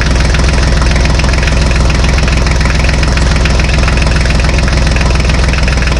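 Tractor engine idling steadily, low-pitched and even, with a fast regular rhythm throughout.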